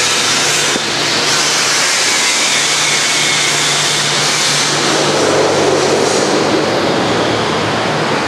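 Dust collection system and bandsaw motor running steadily: a constant rushing noise with a low hum. From about five seconds in, a rougher, lower rushing joins in.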